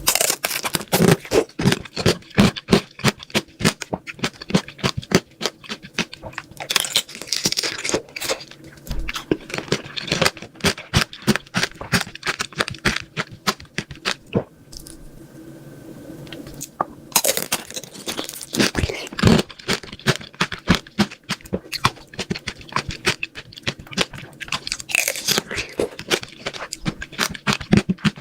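Close-miked crunchy eating of hard, crisp sweets: quick runs of sharp crunches as the food is bitten and chewed, easing off twice into quieter chewing before the crunching picks up again.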